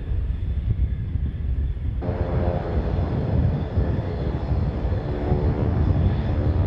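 Several propeller aircraft flying an aerobatic formation pass, their piston engines droning together with a steady stack of tones over a low rumble. The sound changes abruptly about two seconds in, at an edit, and the engine tones come through stronger after it.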